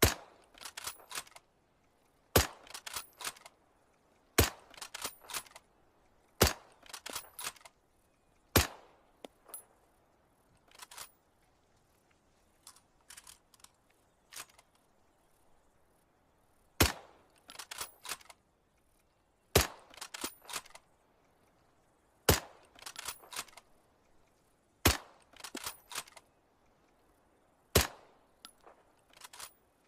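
Short-barreled Mosin-Nagant bolt-action rifle firing ten shots in two strings of five, each shot followed by the clicks of the bolt being worked. A run of quieter clicks between the strings, with no shots, fits reloading the five-round magazine.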